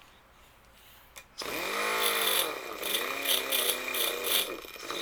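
A small hand grinder is switched on about a second and a half in and spins up, its pitch rising. It then grinds the dents and raised edges off a chainsaw chain's drive links, the pitch dipping and wavering under load with repeated bursts of high hiss as it bites.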